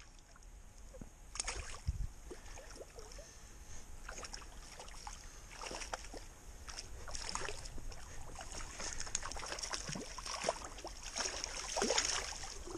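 A hooked brook trout splashing and thrashing at the surface of a shallow stream, with water sloshing and scattered small clicks and taps, as the fish is played close and scooped into a landing net. The splashing grows louder toward the end as the net goes in.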